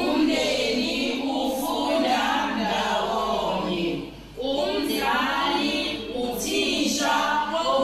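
A choir of voices singing a song as background music, in long held phrases with a brief break about four seconds in.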